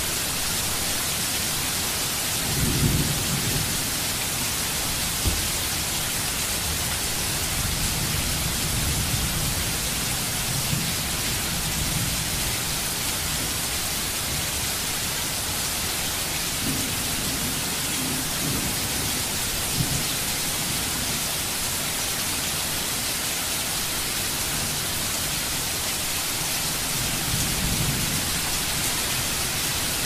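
Steady hiss of heavy rain, with several low rumbles that swell and fade, the strongest about three seconds in.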